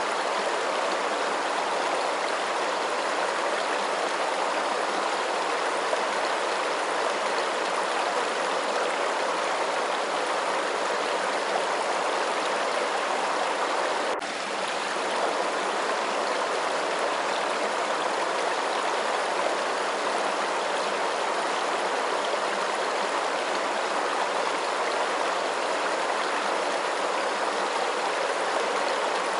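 Steady, continuous rush of running water, like a flowing stream, with a momentary dip about halfway through.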